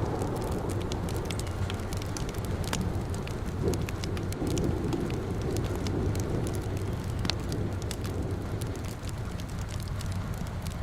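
Fireplace crackling, with scattered sharp pops and ticks over a steady low rumble of rain.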